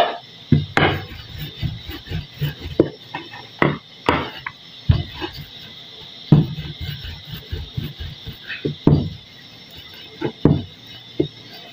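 Wooden rolling pin rolling out chapati dough on a table, with irregular knocks and thuds as it is pushed back and forth and set down.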